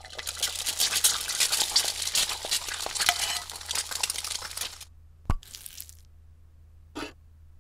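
Frying-pan sizzle sound effect: dense crackling that stops about five seconds in. It is followed by a single sharp click and, near the end, a brief rustle.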